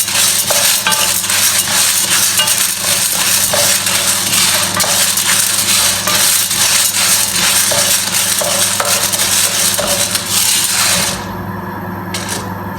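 Arabic coffee beans being stirred as they roast in a pan: dense scraping and rattling with many small clicks against the metal. The beans are close to turning brown. About eleven seconds in the stirring stops suddenly, leaving a steady low hum.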